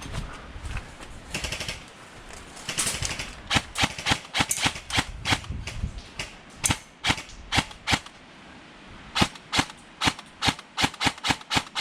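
Airsoft gun firing a string of quick sharp shots, about three or four a second, starting a few seconds in, pausing for about a second near the middle, then firing again.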